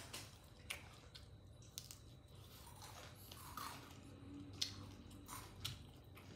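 A person chewing and biting pieces of crispy deep-fried catfish close to the microphone: quiet wet chewing broken by a few short, sharp crunches, the sharpest about halfway through.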